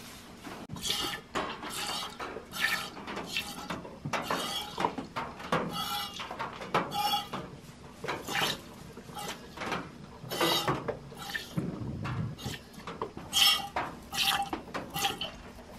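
Goat being hand-milked into a stainless steel pot: irregular short metallic pings and splashy hisses as squirts of milk strike the pot, one or two a second.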